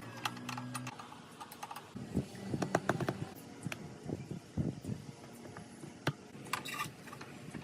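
Irregular light clicks and taps of hand tools and small metal parts being handled, with a brief low hum in the first second and a quick flurry of clicks near the end.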